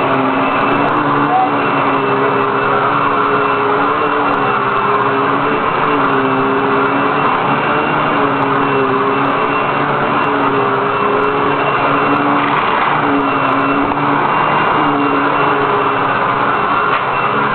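Hoover WindTunnel upright vacuum cleaner running steadily as it is worked across the floor. Its motor hum steps up and down in pitch every second or two under a constant rush of air and a steady high whine.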